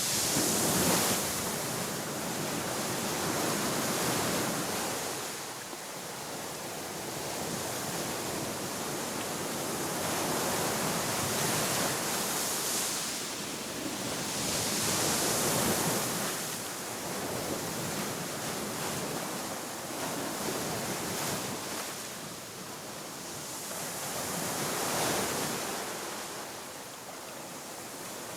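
Sea waves breaking and washing up on a shore, the surf swelling and falling back every few seconds.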